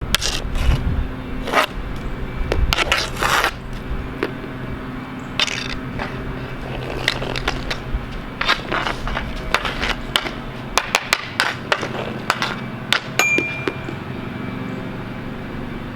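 Irregular clicks, knocks and scrapes, as of hard objects striking and sliding, over a steady low hum, with a brief thin tone about 13 seconds in.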